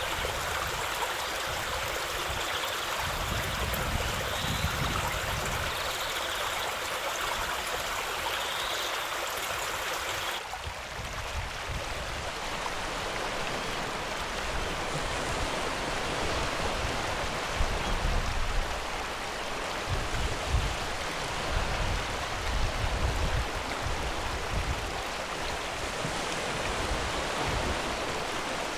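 Steady rush of flowing creek water. The sound changes abruptly about a third of the way in, and a few low thuds come in the second half.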